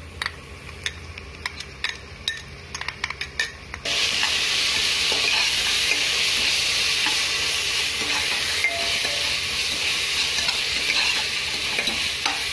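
A metal spoon and spatula clink and scrape against the pot while ginger-garlic paste is added to browned onions. About four seconds in, loud steady sizzling starts as the onions and paste fry in oil and ghee and are stirred.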